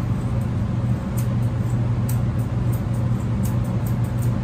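Steady low hum of a motor running in the mobile grooming van, with faint, scattered snips of grooming shears trimming around the dog's face.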